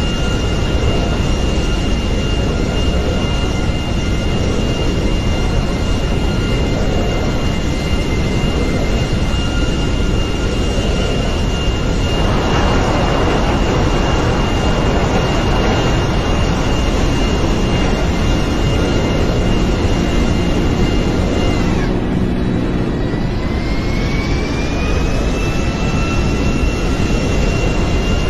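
Jet aircraft engine running loud and steady, with a high whine over a broad rush of noise. About two-thirds of the way through, the whine drops suddenly and then climbs back up over a few seconds.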